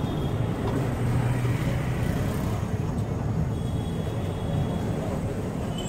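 Steady roadside traffic noise with a continuous low engine hum, and a faint thin high tone lasting about a second midway through.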